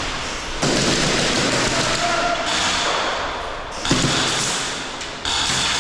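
Rapid, continuous airsoft gunfire from high-rate-of-fire electric rifles, coming in long strings that start and stop abruptly, with a single sharp thump about four seconds in.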